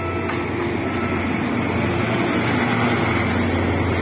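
Diesel-hydraulic locomotive running as it approaches and draws alongside, a steady low engine sound growing slightly louder.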